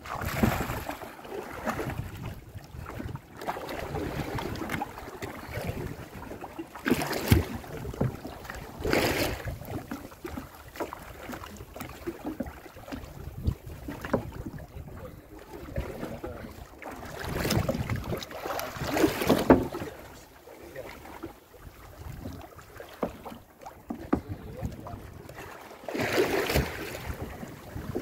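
Splashing water as a gaffed yellowfin tuna is hauled up against the side of a small boat, with wind buffeting the microphone in irregular gusts.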